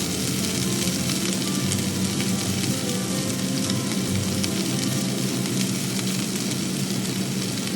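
Food sizzling and crackling in a frying pan, a steady sizzle, under light background music.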